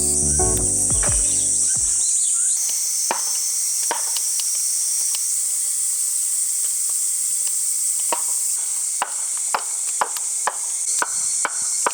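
Crickets and other insects keep up a steady high-pitched trill, with music dying away in the first two seconds. From about eight seconds in, sharp knocks join, coming at about two a second.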